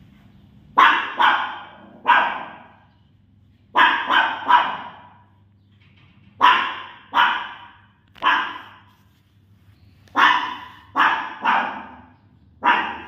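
Small puppy barking: about thirteen sharp, high yaps, mostly in quick groups of three, with pauses of a second or so between the groups.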